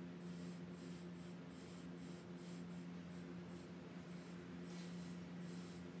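Faint, irregular scratchy strokes of a thin tool being worked over a wet acrylic pour on a canvas, over a steady low hum.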